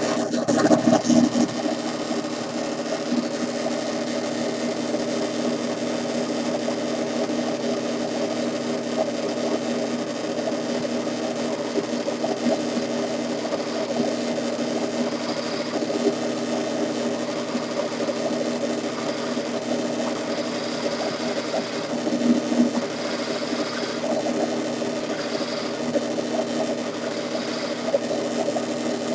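Drill press motor running with a steady hum, drilling shallow holes in wooden knobs; it gets louder briefly just after the start and again about 22 seconds in.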